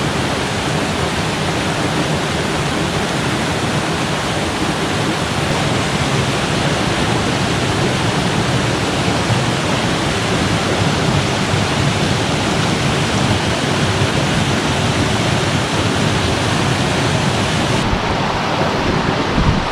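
Steady rush of a small waterfall and fast-flowing creek, a dense, even hiss of water.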